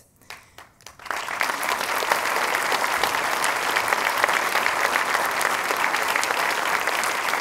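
An audience breaks into applause about a second in and keeps clapping steadily.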